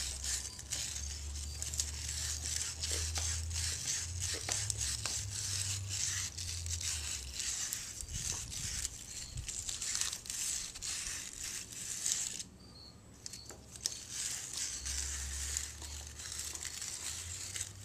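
Hand wire brush scrubbing rust out of the pilot bushing bore in the rear of a 390 engine's crankshaft: a rapid, scratchy rasp of steel bristles on metal in repeated strokes, pausing for about two seconds about two-thirds of the way through.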